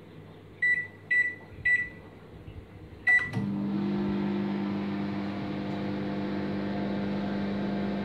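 LG convection microwave oven's keypad beeping three times as the cooking time is set, then a fourth beep as it starts and the oven running in microwave mode with a steady hum.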